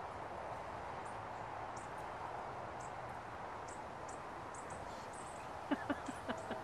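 Outdoor ambience: a steady hiss with scattered faint high chirps. About five and a half seconds in, a quick run of light clicks and taps begins.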